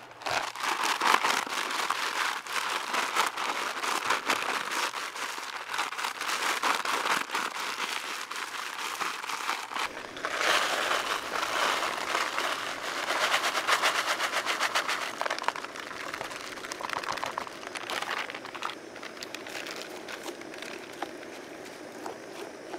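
Potato chip bag crinkling and rustling as it is handled, with chips pouring out of it into a camp cooking pot; the crackling eases off near the end.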